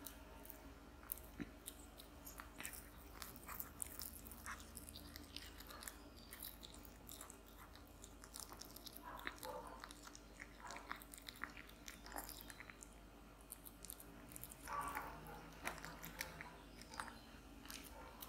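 Tabby cat chewing and biting turkey slices from a plate: an irregular run of quick, sharp clicks and smacks close to the microphone, with two fuller bites about halfway and near the end.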